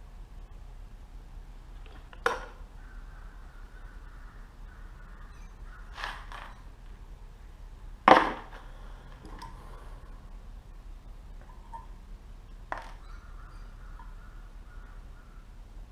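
Handling of small metal carburetor parts and tools during disassembly: four sharp clicks and knocks a few seconds apart, the loudest about eight seconds in.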